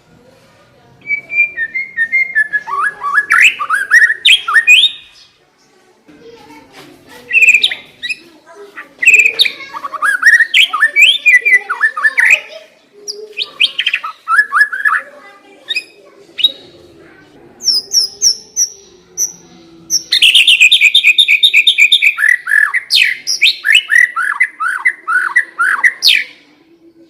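White-rumped shama singing: loud, varied whistled phrases with gliding notes and short pauses between them. Later on there is a fast run of rapidly repeated notes, then a string of falling notes.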